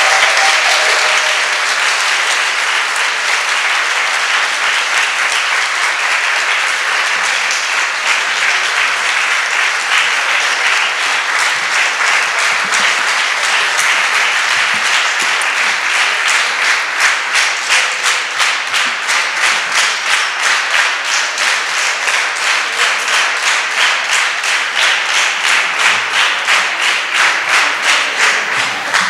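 Audience applauding after the end of a song. About halfway through, the clapping falls into a rhythmic beat in unison, about two to three claps a second.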